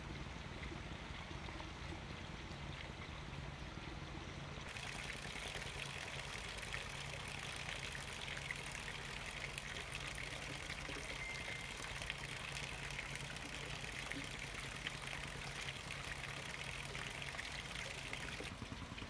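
Steady hiss of running or pouring water, growing louder and brighter about five seconds in.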